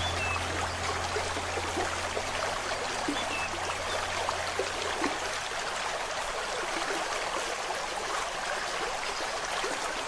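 Steady rushing of a flowing stream, a nature-sound background track. A low held tone fades out over the first few seconds.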